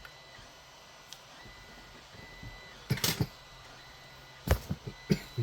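Small tools being handled during desoldering with solder wick: a quick cluster of sharp clicks about three seconds in, then a few more clicks and taps near the end, over a faint steady high tone.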